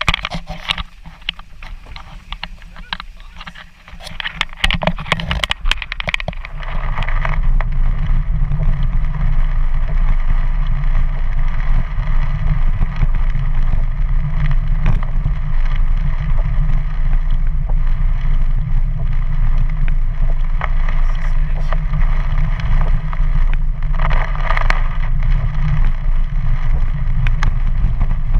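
Car driving on a wet road, heard from inside the cabin: a steady low rumble of engine and tyres that sets in about six seconds in. The first few seconds are quieter, with scattered crackles and clicks.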